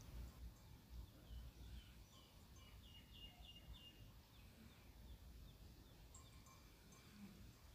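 Near silence: faint low background rumble, with a brief run of faint bird chirps about three seconds in.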